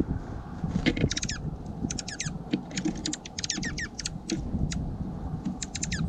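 Small songbirds chirping in several quick bursts of short, high, downward-sliding notes, starting about a second in, over a low rumble of wind on the microphone.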